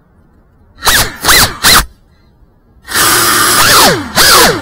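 FPV quadcopter's brushless motors and propellers, heard close up from the onboard camera: three short spin-ups, each rising in pitch and falling away, then about three seconds in a continuous loud whine whose pitch wavers with the throttle as the drone lifts off again.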